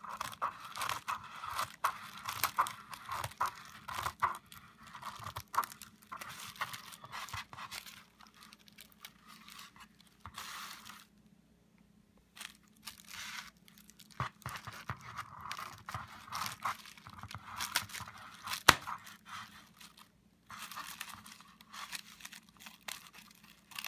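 Plastic bubble wrap crinkling and crackling as it is handled and its air pockets are punctured, in irregular bursts with a few short pauses. One sharp pop stands out about three-quarters of the way through.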